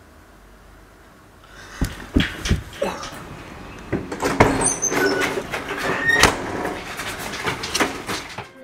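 Faint room tone, then about a second and a half in a quick run of knocks, thumps and clatter: a steel door banging open and hurried footsteps as someone rushes out.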